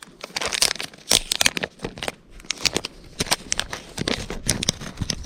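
Plastic packaging crinkling and rustling in short, irregular crackles and clicks as fishing tackle is handled: a pack of EWG hooks being opened and sorted.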